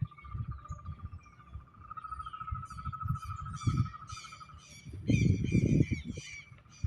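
Birds chirping and singing in quick repeated notes over a steady high trill that stops about two-thirds of the way through. A low rumble, such as wind on the microphone, is the loudest thing for about a second near the end.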